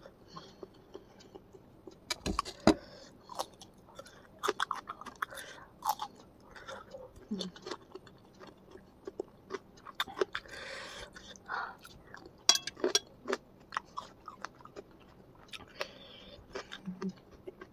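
Close-miked chewing and wet mouth sounds of a person eating spicy noodles and raw cucumber, with crunching and many small sharp clicks. Two louder knocks stand out, about two and a half seconds in and again about twelve seconds in.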